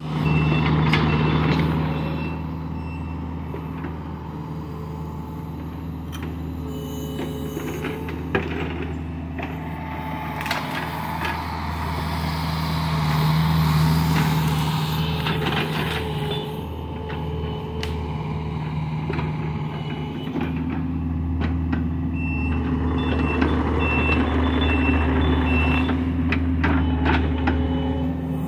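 John Deere 50D compact excavator's diesel engine running steadily, swelling and easing as the hydraulics take load, with scattered knocks as the bucket tears out brush and soil. Near the end the machine's travel alarm beeps in an even series.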